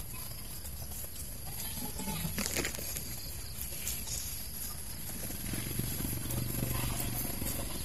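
Faint rural outdoor background with a few soft clicks, and a low steady hum coming in about five and a half seconds in.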